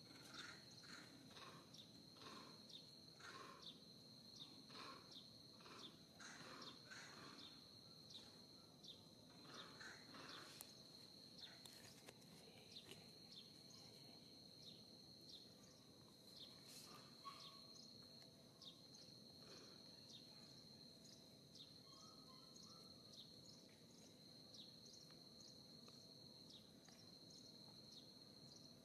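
Faint, steady high-pitched insect trill, with scattered short chirps, most of them in the first ten seconds.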